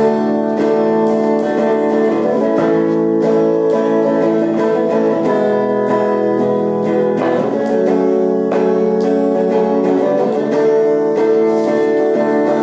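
Instrumental music: a guitar strumming sustained chords.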